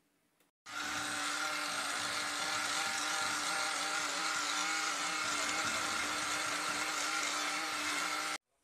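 Small electric kitchen mixer motor running steadily at one speed while blending a creamy béchamel sauce, switched on about a second in and off near the end.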